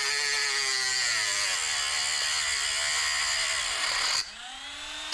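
Handheld rotary tool with a small grinding wheel grinding a stuck part flat on the engine crankcase, a loud steady high whine. About four seconds in the wheel comes off the work: the tool goes quieter and its pitch rises as it spins up.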